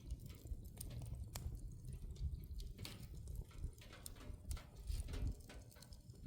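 Irregular light clicks and knocks, several a second, over a steady low rumble.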